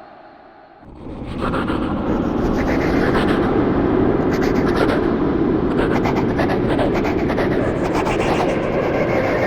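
Creepy echoing sound effect: a fading tail gives way, about a second in, to a dense, noisy swell that rises quickly and then holds steady, with a crackle running through it.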